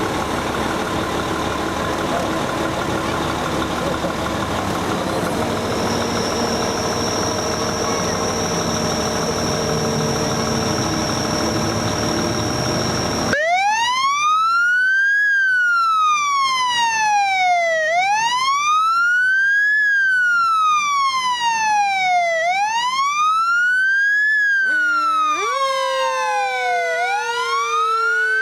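Fire engine's engine running, then about halfway through its siren starts a wail that rises and falls about every four and a half seconds. Near the end a second, lower siren tone joins and slowly falls in pitch.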